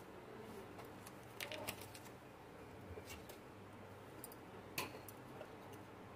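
Quiet room tone with a faint steady low hum and a few light clicks, the sharpest about five seconds in.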